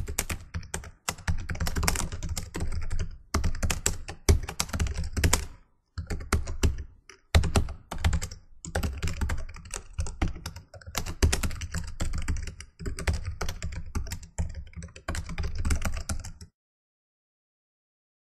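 Keyboard typing sound effect: rapid key clicks in bursts with short pauses, keeping time with on-screen text being typed out, stopping a couple of seconds before the end.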